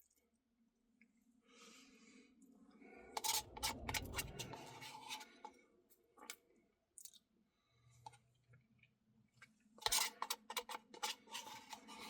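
Spoon scraping and clicking against a Dairy Queen Blizzard cup as the last of the ice cream is scraped out, in two spells of scraping with sharp clicks.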